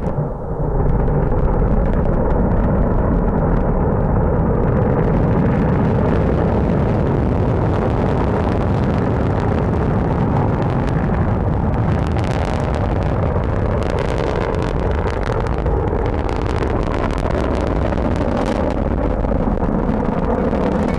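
Lijian-1 solid-fuel rocket's motor at liftoff and climb-out: a loud, steady rumble that sets in suddenly about half a second in and holds, with sharp crackles added from about halfway through.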